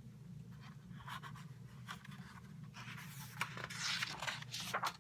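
Soft paper rustling and light clicks, busiest about three seconds in: a picture book's page being handled and turned, over a low steady room hum.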